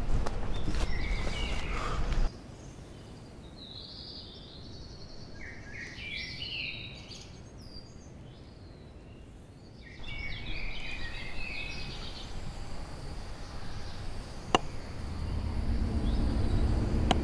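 Small birds singing in short chirping trills over a low outdoor background rumble that drops away a couple of seconds in and comes back near the middle. A single sharp click about fourteen seconds in, and the low rumble swells near the end.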